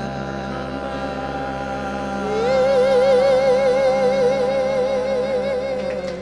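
Doo-wop vocal group holding the closing chord of a song in close harmony. About two seconds in, a lead voice comes in over it on a loud high note with wide vibrato. The chord cuts off sharply at the end.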